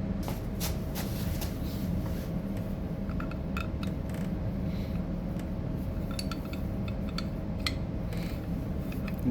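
Scattered light metallic clicks and rubbing as small brake caliper parts and hand tools are handled, over a steady low background hum.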